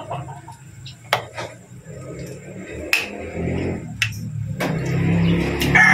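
Metal ladle stirring soup in a steel wok, clinking against the pan about five times, over a low hum that builds in the second half.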